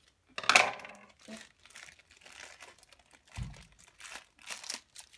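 A black foil blind bag from a My Little Pony Mystery Minis box being crinkled and torn open by hand: scattered crackles, with a louder burst about half a second in and a low thump about three and a half seconds in.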